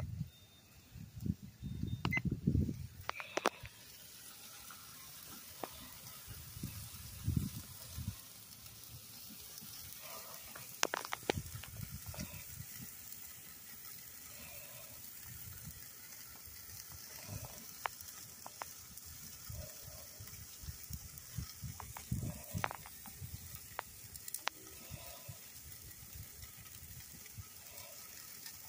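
Steaks sizzling on the grate of a charcoal kettle grill over open flame: a steady hiss with scattered pops and crackles. The first few seconds hold a few dull handling thumps.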